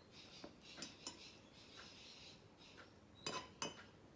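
Faint clinks and taps of a teaspoon against a ceramic mug as loose leaf tea is spooned in, with two louder clinks near the end.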